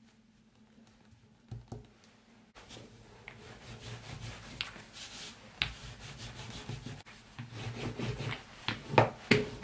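Wooden rolling pin rolling out dough on a countertop: a rubbing, rolling sound that starts a few seconds in. Sharp knocks grow louder and more frequent near the end.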